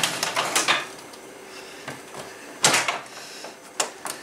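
Metal clicks and scrapes of a nail being worked into a steel garage door hinge as a stand-in for its lost hinge pin. There is a louder scrape a little past halfway and a sharp click near the end.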